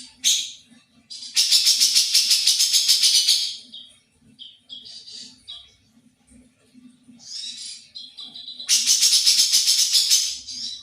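Caged songbird singing: two long, rapid rattling trills of about two seconds each, with short high chirps between them.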